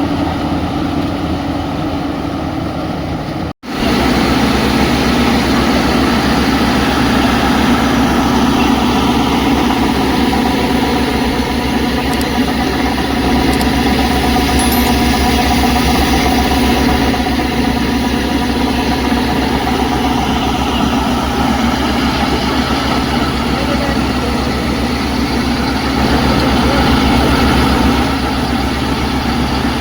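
Combine harvester running steadily while threshing paddy, with a steady engine drone. The sound breaks off for an instant about three and a half seconds in, then carries on unchanged.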